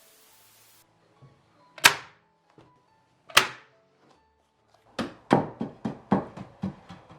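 Sharp knocks on wood: two single strikes a second and a half apart, then a quick run of about eight strikes at roughly four a second.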